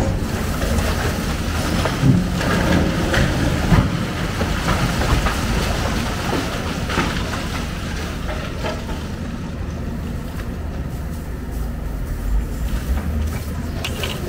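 Hyundai hydraulic excavator's diesel engine running under load while its bucket breaks into a concrete building, with crunching concrete and clattering, falling rubble; several sharp knocks stand out in the first few seconds.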